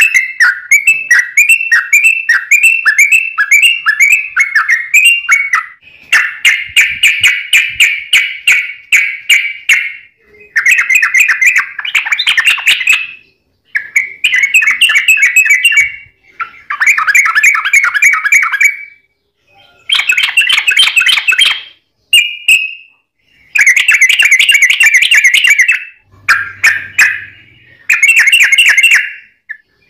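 Yellow-vented bulbul (trucuk) singing loud, fast, chattering phrases of rapid warbled notes, each a second to a few seconds long with short breaks between them. The song opens with a quick run of repeated notes.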